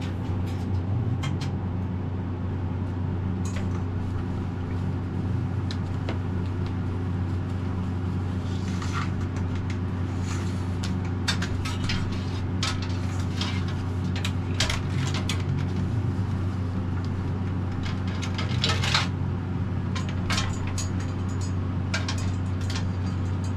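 Light clicks and rustles of electrical wires being handled and worked down through a boat cabin's wall, over a steady low hum.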